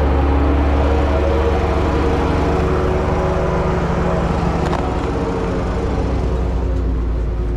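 An engine running steadily close by, a loud low hum with a few steady overtones that shift slightly about halfway through.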